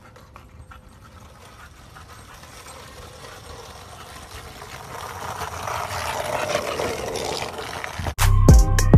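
Skateboard wheels rolling over cracked asphalt, growing steadily louder as the board approaches. Near the end, loud music with a drum beat cuts in suddenly.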